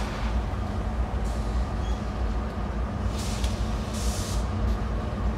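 Steady low rumble of BNSF freight diesel locomotives, with two short hisses about three and four seconds in.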